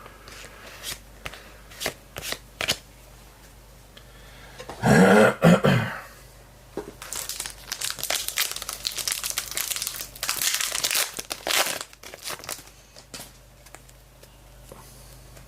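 A trading-card pack wrapper crinkling and being torn open, with scattered clicks at first and a long stretch of crackling from about seven to twelve seconds in. There is a short, louder pitched sound about five seconds in.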